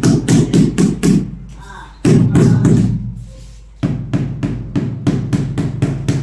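Music with a fast, even percussive beat, about five strikes a second over a steady low tone, dropping away briefly twice and coming back suddenly.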